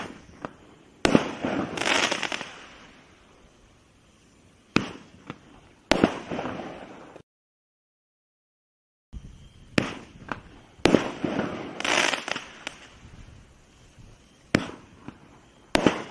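Cosmic Fireworks Star Bombs, twin-shot 1.3G roman candles, firing: sharp bangs in pairs about a second apart, a launch followed by a loud burst, and each burst trails off in a few seconds of crackling hiss. Four bangs come from one tube, then after a silent gap of about two seconds four more from the next.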